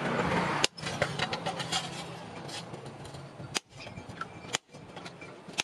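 Sledgehammer blows on a handled cutting chisel set on a steel circular saw blade over an anvil: sharp metallic strikes at uneven intervals, the first the loudest, with lighter metal clinks and rattling between.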